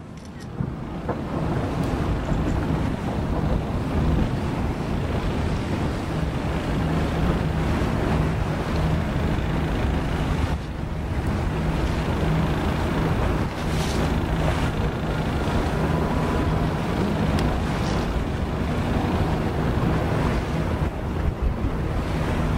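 A boat under way: its engine runs with a steady low hum under rushing water and wind buffeting the microphone. The noise builds over the first couple of seconds, then holds steady.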